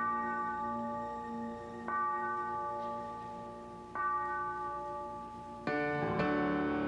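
Solo piano played slowly: three ringing chords about two seconds apart, each held and left to fade, then a louder, fuller chord near the end with quicker notes above it.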